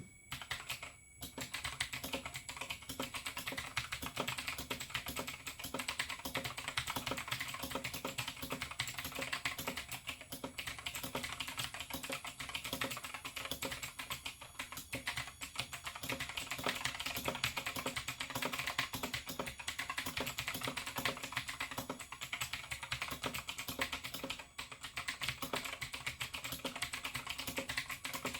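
Razer BlackWidow X Chroma mechanical keyboard with clicky Razer Green switches being typed on quickly: a dense, unbroken run of key clicks that starts about a second in.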